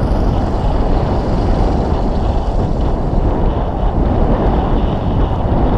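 Steady wind buffeting on the microphone of a camera riding on a moving bicycle, a dense low rumble with no break.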